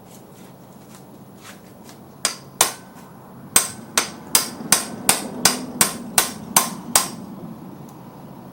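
Hammer blows on a Pittsburgh manual impact screwdriver, metal on metal: two sharp strikes, then a steady run of about ten more at roughly three a second. The driver is being struck to break loose stuck side-cover screws.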